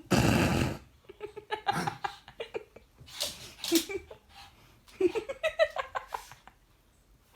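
A person laughing in short bursts, twice, after a loud brief rustling noise at the very start.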